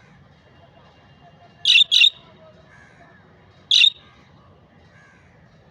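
Budgerigars calling: three short, loud, harsh squawks, two in quick succession about a second and a half in and a third near four seconds, over faint soft chatter.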